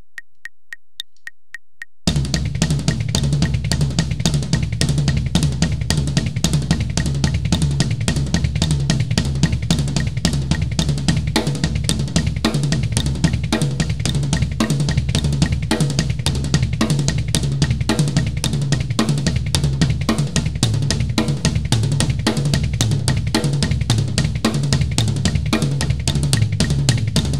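Acoustic drum kit played fast in a continuous sextuplet fill: right hand, left, left, right on snare and toms, then two bass-drum strokes, repeated over and over with cymbals ringing. The drumming comes in after about two seconds of steady, evenly spaced clicks.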